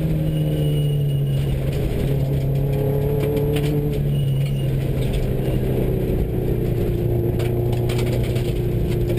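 Inside a Subaru rally car driving at speed on a gravel road: the engine runs at fairly steady revs, with small dips in pitch, under the rattle and clatter of gravel and the cabin.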